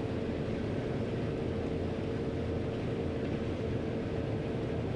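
John Deere 9500 combine running steadily while harvesting corn, heard from the cab: an even machine drone with a steady hum through it.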